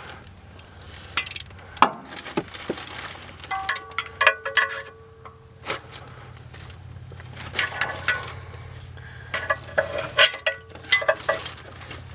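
Hand tools on metal: a socket ratchet clicking and tools clinking and knocking at irregular moments. Short metallic rings come with some of the knocks, one held for about a second about four seconds in and more between eight and eleven seconds.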